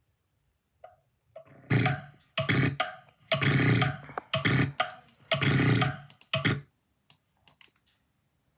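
Loud snoring: a quick run of about six rough snores over some five seconds, alternating longer and shorter, then it stops.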